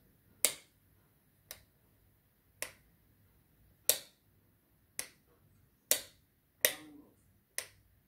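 Wall rocker light switches being flipped on and off: eight sharp clicks about a second apart, some louder than others.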